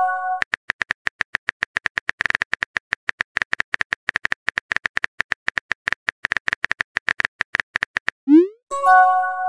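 Simulated phone keyboard tapping: rapid, irregular key clicks, each with a short bright tick. Near the end a rising whoosh and a short chime mark the message being sent.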